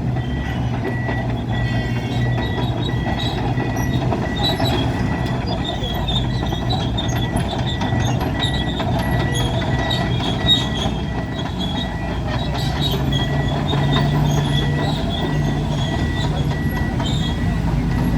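Heavy mining machinery running with a steady low drone whose pitch rises a little about two-thirds of the way through, with an electronic warning alarm beeping at an even pace throughout.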